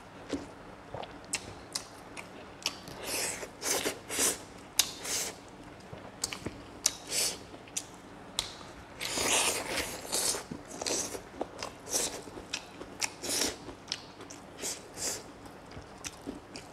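A man chewing mouthfuls of rice and pork close to the microphone: irregular wet smacks, clicks and crunches.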